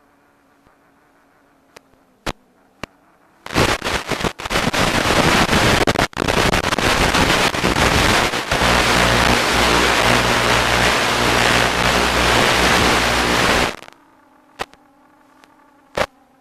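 Loud hiss of radio static from an analog FPV video receiver, starting about three and a half seconds in and cutting off suddenly about ten seconds later, with a low buzz under it in its second half: the sign of the drone's video link breaking up. Before and after it, a faint hum with a few sharp clicks.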